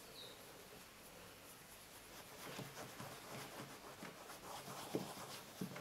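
Polishing cloth rubbing leather conditioner into a black leather R.M. Williams parade boot: faint, scratchy rubbing strokes, with two soft knocks near the end.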